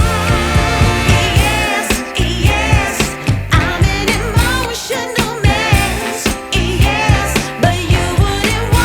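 Background music: a song with a sung vocal line over a steady beat with heavy bass.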